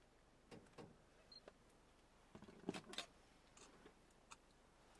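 Near silence broken by a few faint, irregular clicks and knocks, the loudest pair about two and a half and three seconds in.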